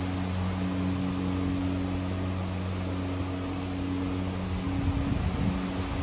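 Steady low mechanical hum with a few held low tones, briefly unsettled about five seconds in.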